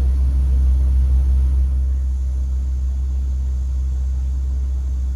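Safari truck's engine idling with a steady low rumble while the vehicle stands waiting. The rumble eases slightly about two seconds in.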